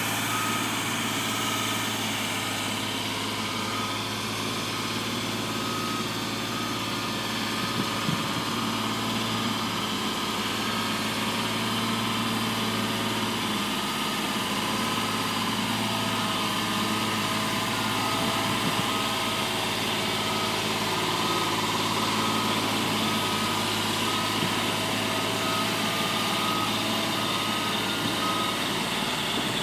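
JLG 400S telescopic boom lift's engine running steadily while the boom is lowered and swung, with a motion alarm beeping repeatedly through the first several seconds.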